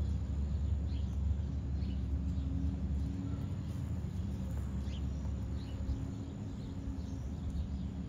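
Outdoor farmyard ambience: a steady low rumble that eases off after about three seconds, with a few faint short bird chirps.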